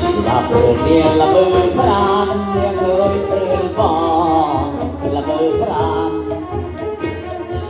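Live kantrum, the Northern Khmer folk music of Surin: drums beat under a wavering melody line.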